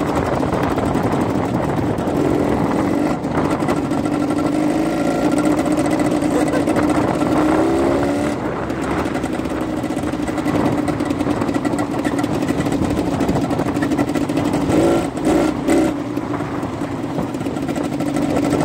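Quad bike engine running steadily under way through sand, its tone wavering a little, over heavy rushing noise. A few brief louder bursts come near the end.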